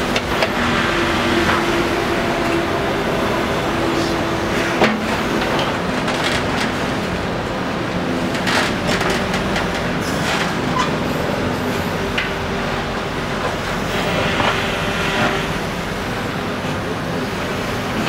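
Backhoe loader's diesel engine running steadily while it digs a trench, with a humming tone that changes pitch now and then and a few sharp knocks.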